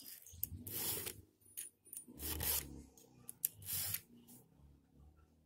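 Round chainsaw file rasping across the cutters of a saw chain, sharpening it by hand: three push strokes about a second and a half apart.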